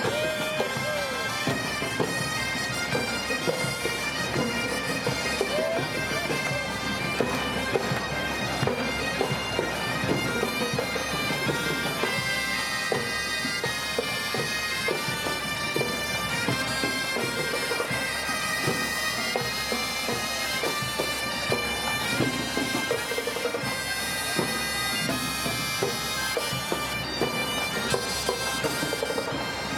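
Breton bagad (pipe band) playing a marching tune: bagpipes holding a continuous melody over a drone, with drums beating underneath.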